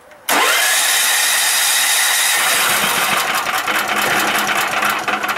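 Yamakoyo SH7000DXE generator's 13 hp engine cranking on its starter for about five seconds while running on natural gas, then cutting off without catching. Starting this engine on natural gas is tough.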